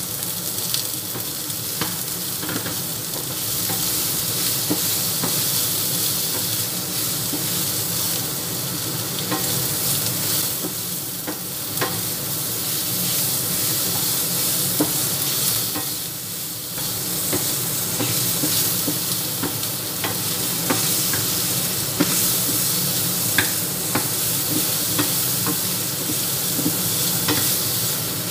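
Diced beef sausage and garlic sizzling in hot oil in a pan, stirred with a wooden spatula that scrapes and clicks against the pan now and then.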